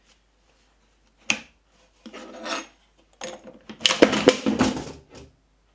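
A homemade Allen-key T-handle crank being turned in the height adjustment of a router's fixed base under a router-table insert plate, raising the router for a bit change: a single click about a second in, then scraping and rubbing that comes in short spells and is loudest about four seconds in.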